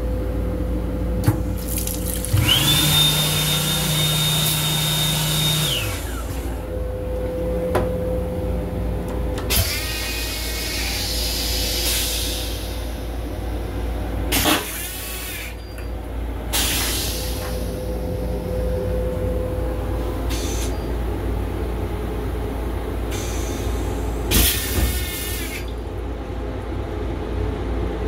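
A restroom sink's sensor faucet on an M7 commuter railcar runs for a few seconds with a steady high whine and a low hum. Several shorter rushes of water follow, some with rising tones, over the steady low rumble of the moving railcar.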